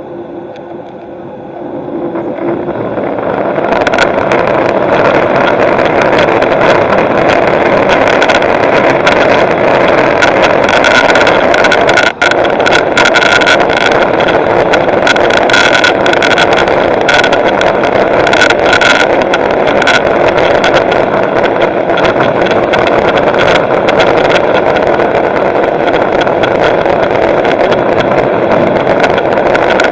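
Aircraft engines spooling up to takeoff power: the sound swells over about two seconds into a loud, steady rush with a thin high whine, held through the takeoff run.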